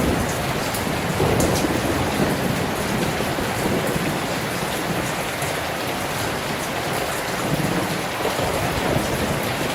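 Steady heavy rain heard from inside a room, with low rumbling swells of wind about a second in and again near the end.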